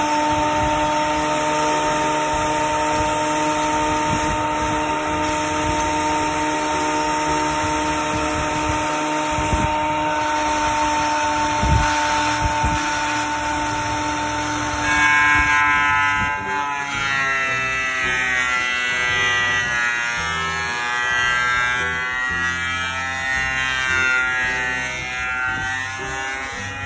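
An electric power tool's motor running with a steady buzzing hum that holds one pitch, then wavers in tone from about halfway through as the tool is moved or loaded.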